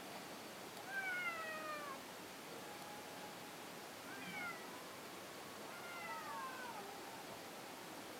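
A cat meowing three times, each meow falling in pitch. The first, about a second in, is the loudest; the second is short and the third is drawn out.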